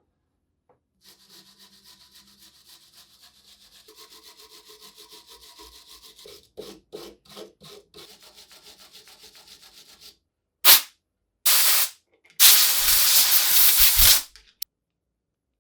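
Wire brush scrubbed by hand over rusty steel of an old bench vise in quick, even back-and-forth strokes. Near the end come three loud hissing bursts, the last about two seconds long.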